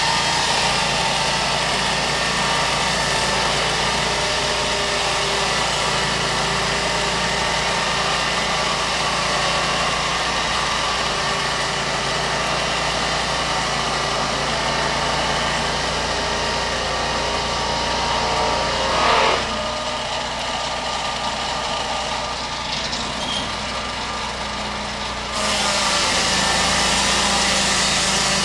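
Lucas Mill swing-blade sawmill's engine running under load as its circular blade is pushed along a redwood log, cutting lumber. The sound is steady, with a brief swell about two-thirds of the way through, a slightly quieter stretch after it, and a sudden step back up in level a few seconds before the end.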